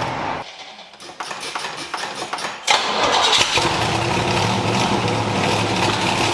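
A 1968 Corvette's 427 big-block V8 is started through Hooker side-pipe headers. The starter cranks unevenly for about two and a half seconds, then the engine catches with a sudden loud bark and runs steadily and loudly through the open side pipes.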